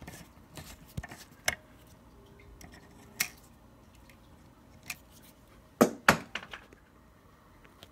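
Scattered small clicks and taps of hands and a screwdriver working the wires and terminal screws of a doorbell chime box, with two sharper clicks close together about six seconds in.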